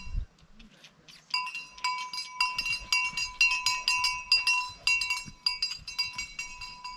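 A metal bell of the cowbell kind, clanking in an uneven rhythm of a few strikes a second from about a second in. A short dull bump comes right at the start.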